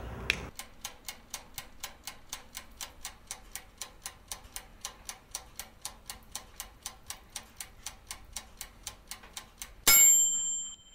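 Rapid clock-style ticking, about four even ticks a second, then a single loud, bright bell ding near the end, as a timer going off marks the time passing.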